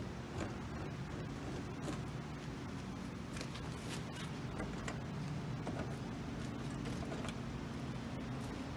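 A steady low mechanical hum with faint scattered clicks and light knocks.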